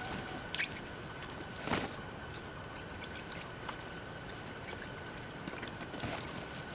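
Steady outdoor background hiss with a faint steady high tone, broken by a few short sharp snaps, the clearest about half a second and just under two seconds in.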